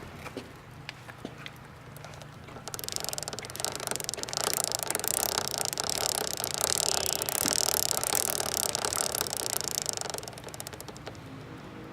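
A drive chain running with a dense, rapid rattle, loud from about three seconds in until near the end, over a steady low hum. The rattle is the abnormal chain noise being shown.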